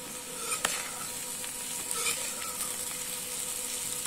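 Boiled potato cubes sizzling in hot oil in a kadhai while a slotted spatula stirs them, mixing in the spice powders. A sharp knock of the spatula against the pan comes about half a second in, with a few fainter scrapes later.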